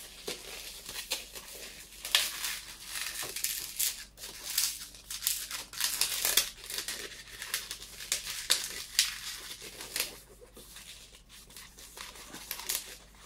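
A 160 latex modelling balloon being squeezed and twisted by hand as the air is pushed along it and small bubbles are twisted in: irregular rubbing and crinkling noises of the latex under the fingers.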